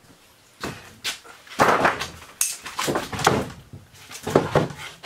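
Rough-sawn wooden boards knocking and clattering as they are laid down and shifted on a wooden bench: a string of irregular wooden knocks, loudest about a second and a half in.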